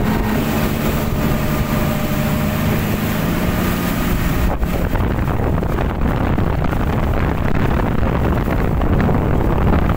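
Twin Yamaha 250 hp outboard motors running steadily at speed, with the rush of water from the hull and wind on the microphone. About halfway through the engine tone fades back and the wind and water noise take over.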